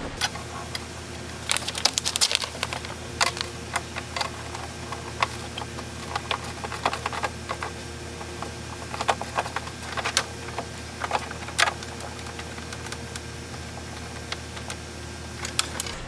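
10 mm ratcheting wrench clicking in short, irregular runs as the last nut holding a truck's exterior door handle is worked loose from inside the door, over a steady low hum.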